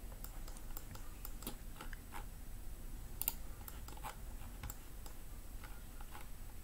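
Faint, irregular clicks of a computer mouse as polygon corners are clicked out in PCB-design software, over a steady faint low hum.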